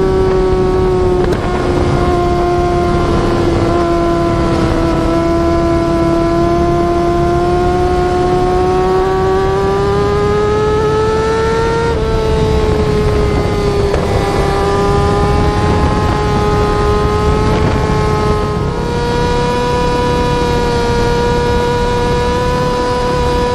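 Yamaha R6 inline-four sportbike engine held at high revs, a steady high-pitched drone that rises and falls slowly in pitch. It jumps abruptly in pitch about 12 and 19 seconds in.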